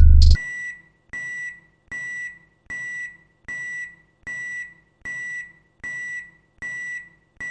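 A loud hip-hop beat cuts off about half a second in, followed by a microwave oven beeping: a single high beep repeated about every three-quarters of a second, each beep under half a second long.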